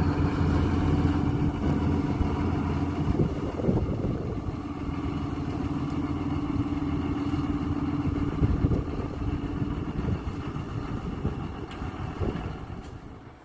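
John Deere tractor engine running at a steady speed, its exhaust note with an uneven clatter through it. The sound drops away near the end.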